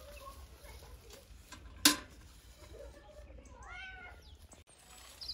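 A cat meowing several times, with short rising-and-falling calls; the loudest meow comes a little under four seconds in. A single sharp crack about two seconds in is the loudest sound.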